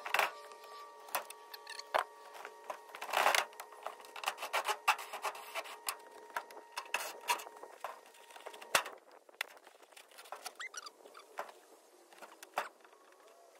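Scattered knocks, clicks and scraping as an old rod-holder box is pried and pulled loose from a pontoon boat's deck. The knocks come thick at first and thin out in the second half.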